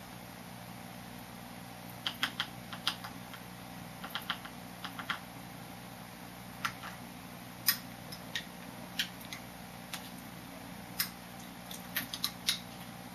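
A spoon clicking and tapping against a jar in irregular sharp clicks, in loose clusters starting about two seconds in.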